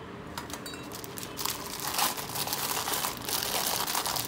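Clear plastic wrapping crinkling as plastic-wrapped German silver pooja items are handled and lifted off a shelf. A few light clicks come first, then dense crackling from about a second and a half in.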